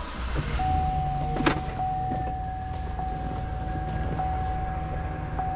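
2009 Chevrolet Silverado pickup's engine running low as the truck rolls forward a short way, with one sharp knock about one and a half seconds in. A thin steady warning tone sounds over it, pulsing about every second.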